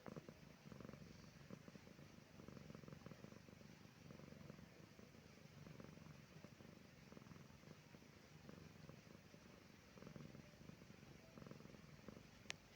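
Domestic cat purring faintly while resting, the purr swelling and fading with each breath every couple of seconds, a sign of comfort. A brief sharp click near the end.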